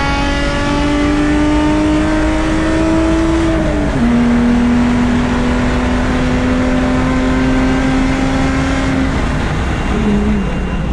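Mercedes C300 race car's engine heard from inside the cabin, pulling hard at full throttle. Its pitch climbs slowly, drops sharply at an upshift about four seconds in, then holds steady before falling again near the end as the car lifts. Tyre and road noise run underneath.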